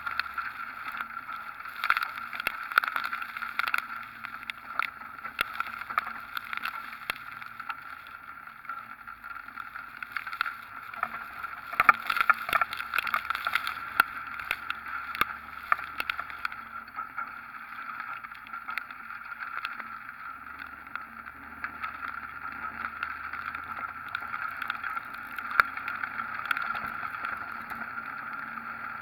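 Hurricane wind and rain hitting a camera mounted on the outside of a moving pickup truck: a steady rushing hiss with many sharp ticks of raindrops striking the camera, thickest about halfway through.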